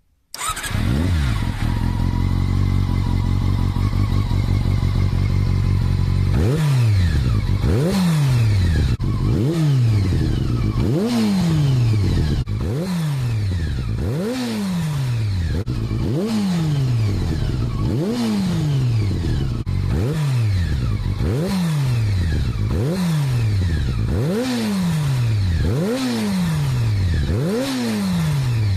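Honda CBR400RR (NC23) inline-four motorcycle engine running through an OVER RACING slip-on silencer: it idles steadily for about six seconds, then is revved in quick, sharp blips about every second and a half, each rev falling back toward idle before the next.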